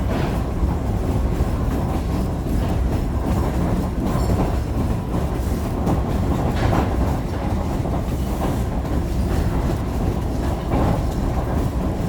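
Heritage excursion train passenger car rolling along the track, heard from on board: a steady low rumble of wheels on rails with a few sharper clacks.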